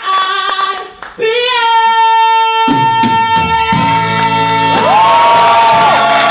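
A woman belting long held notes in a stage musical number, with sparse handclaps at the start; about three seconds in a band and the ensemble's voices join, swelling into a loud, full sustained finish.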